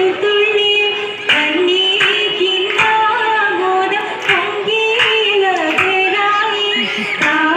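Oppana: female voices singing a Mappila song together, with group hand claps keeping a steady beat about every three-quarters of a second.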